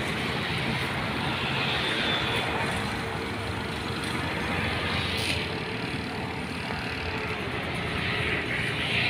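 A grass-cutting brush cutter's engine running steadily, mixed with road traffic noise.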